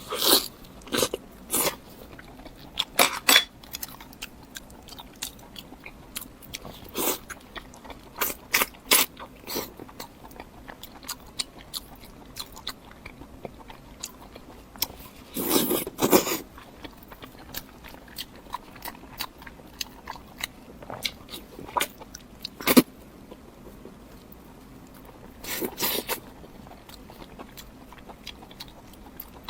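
Close-miked eating sounds of pork large intestine being bitten and chewed: scattered wet mouth clicks and smacks, with a few longer, louder bursts of chewing, one about halfway through and another near the end.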